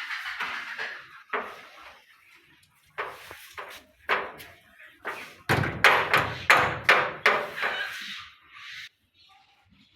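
Straw rustling and crunching as cows pull at it and feed, in irregular noisy bursts. The bursts are loudest and come about three a second in the second half, then stop near the end.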